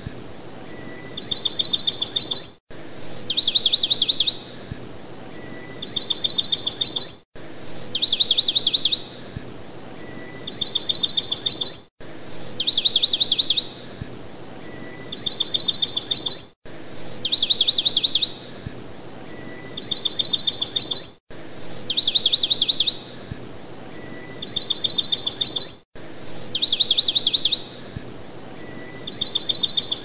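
Recorded songbird song repeating as a loop about every four and a half seconds: a clear high note running into a fast trill, then a second fast trill, with a brief cut-out each time the loop restarts.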